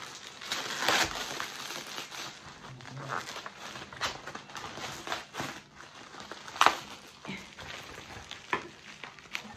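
Plastic packaging, a black plastic bag around bubble wrap, being handled and unwrapped: irregular rustling and crinkling with scattered sharp crackles, the loudest about two-thirds of the way through.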